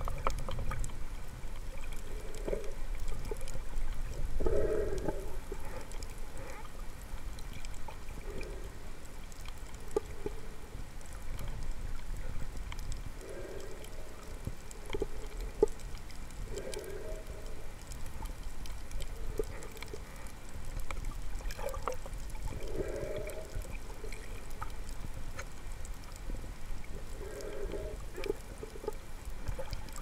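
Shallow seawater sloshing and gurgling, heard muffled from just below the surface: a steady low rumble with short gurgling swells every few seconds.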